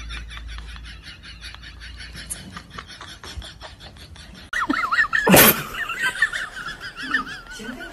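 A rapid, even run of clicks, then from a little past halfway a high, wavering vocal cry, with one sharp loud burst near the middle of the cry.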